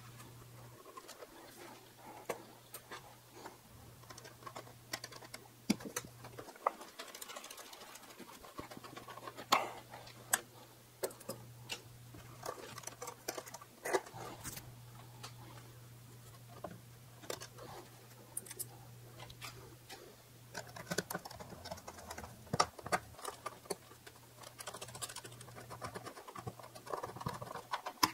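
Faint handling noise: scattered small clicks, taps and scratches as hands work a model biplane's wings and thread its flying wires, over a steady low hum.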